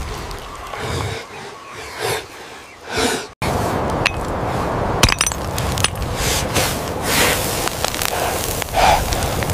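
Stone knapping: stone struck and scraped against stone, with a few sharp clicks over a steady noisy hiss.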